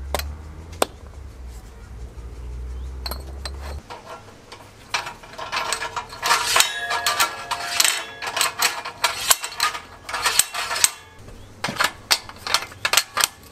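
Metal cartridge tubes clinking and knocking against each other and against a steel magazine rack as they are handled and loaded. A dense run of ringing metallic clinks fills the middle, with scattered single clicks before and after, and a low rumble in the first few seconds.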